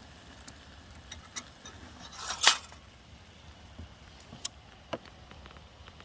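Handling of small metal camp cookware: scattered light clinks and taps, with one louder scrape or rustle about two and a half seconds in and two sharp clicks near the end.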